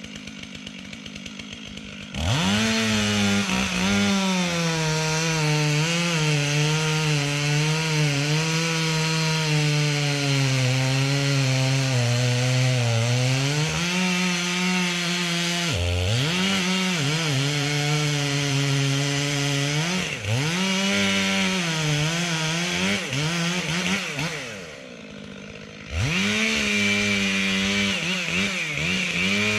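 Two-stroke chainsaw idling, then revved to full throttle about two seconds in and cutting through wood, its pitch sagging and recovering under load. It drops back to idle twice, around the middle and shortly before the end, and revs up to cut again each time.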